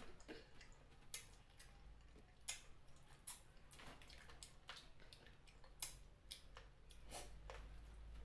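Quiet eating sounds while chewing chicken feet in curry: irregular wet clicks and smacks, about one or two a second.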